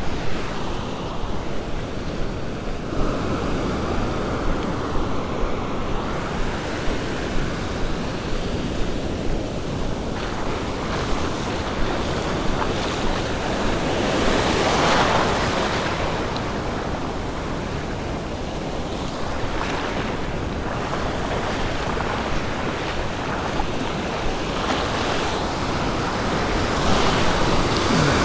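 Ocean surf breaking and washing up a sandy beach, a steady rush with a bigger wave swelling and breaking about halfway through; wind gusts on the microphone.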